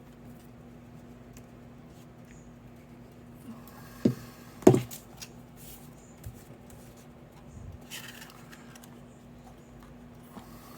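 Hands working paper and glue on a card piece: faint handling with two sharp knocks about four and five seconds in and a softer one near eight seconds, over a steady low hum.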